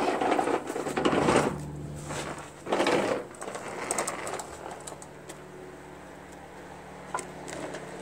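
A steel lawn-tractor mower deck being lifted and tipped up onto its edge, scraping and clattering against the ground. There are two loud bursts, one at the start and one about three seconds in, followed by a few light knocks.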